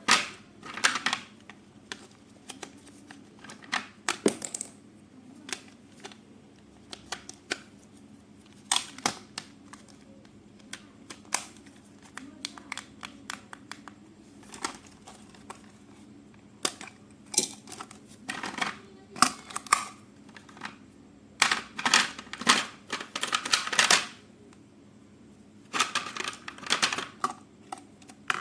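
Toy packaging and parts being handled by hand: irregular clicks and taps with rustling, in denser clusters after the middle.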